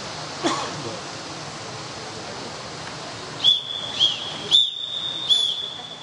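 A whistle blown in four sharp, high blasts in the second half, the third held longer, over the steady background noise of a pool hall. A short sound falling in pitch comes about half a second in.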